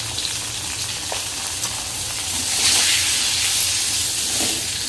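Pieces of pointed gourd (potol) sizzling as they fry in hot oil in a kadai, a steady hiss that swells louder about two and a half seconds in.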